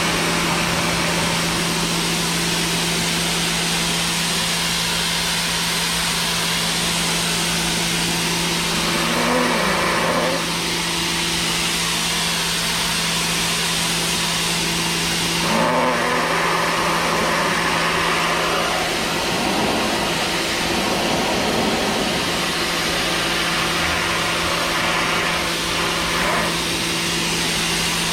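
Sun Joe SPX3000 electric pressure washer running: a steady motor-and-pump hum under the loud hiss of the water jet. The hum dips briefly about two thirds of the way through.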